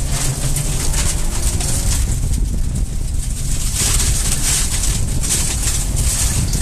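Subaru Impreza STI rally car's turbocharged flat-four engine running at speed, heard from inside the stripped cabin, over a steady rush of tyre and wind noise. Loose gravel rattles and pings against the underbody.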